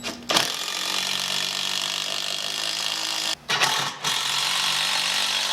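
Handheld power drill running at steady speed, with two brief stops about three and a half seconds in before it runs on.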